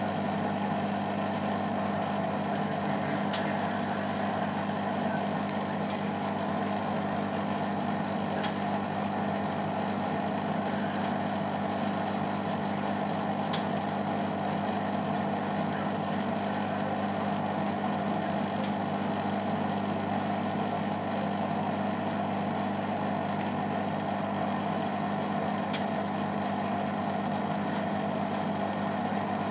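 Beko Eco Care WMA 1510 washing machine on its final spin, the drum turning at a steady speed with a constant motor hum and a few faint ticks.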